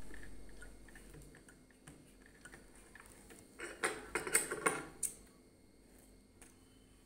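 Light metal clicks at a sewing machine's needle plate, then cloth rustling for about a second and a half around the middle as a finished frock is pulled out from under the presser foot.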